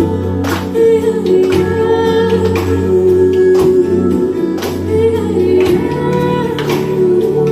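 A song with singing over instruments and a steady beat of about one stroke a second.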